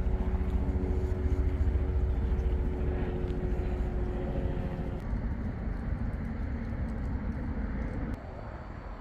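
A motor vehicle's engine running with a steady hum over a low rumble; the hum stops about five seconds in and the rumble eases near the end.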